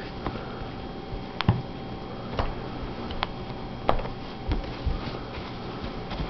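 A handful of light, separate clicks and taps from handling an iPod Touch and wiping its bare screen clean, over a steady faint room hum.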